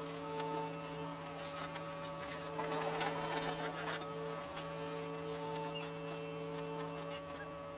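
John Deere 75 excavator's diesel engine and hydraulics running under work, a steady buzzing drone with a whine in it that breaks off and picks up again a couple of times.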